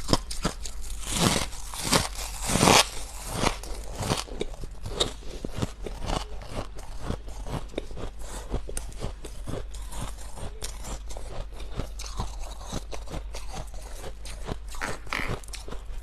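Close-up biting and chewing of freezer frost: a dense run of crisp crunches, with the loudest, longer crunches a second or two in.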